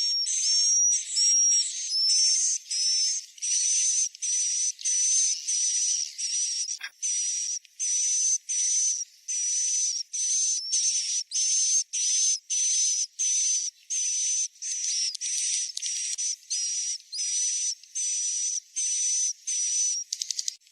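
Recorded swiftlet roosting-call track: a fast, even series of short hissy chirps, about two a second, each carrying a high whistle-like tone. It is a lure sound of the kind played in new or empty swiftlet houses to draw birds in. A single sharp click sounds about seven seconds in.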